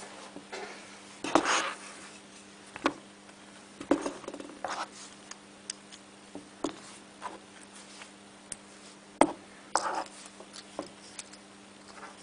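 Hard plastic pieces handled on a tabletop: scattered sharp clicks and knocks as they are set down and picked up, with a few brief rustles, over a faint steady hum.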